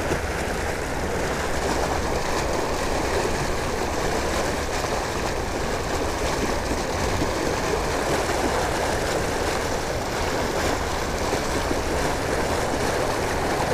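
Steady rushing of canal water pouring out of a large spill pipe into the river.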